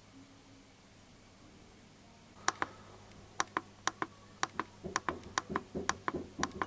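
A clock ticking, starting about two and a half seconds in: sharp clicks in tick-tock pairs about twice a second, with duller low knocks under the later ticks.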